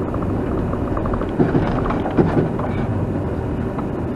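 Steady low rumble of a vehicle running, with a few faint knocks.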